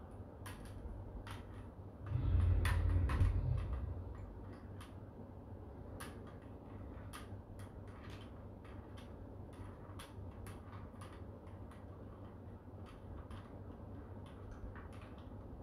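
Small plastic clicks and ticks, irregular and scattered, from hands working the plastic mount and clamp of a 10-inch LED ring light. About two seconds in, a louder low rumble lasts for a couple of seconds.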